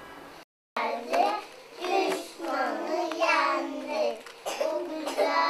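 A group of young children singing together, starting after a brief silence near the start.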